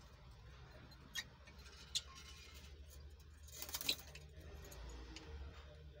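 Fischer's lovebirds giving short, high chirps: single brief ones about one and two seconds in, then a louder cluster a little after halfway, over a faint low hum.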